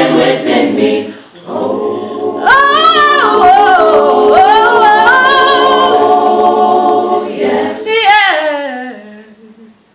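Unaccompanied student choir holding sustained chords while a female soloist sings over them with sliding runs. The sound dips briefly about a second in and fades away near the end.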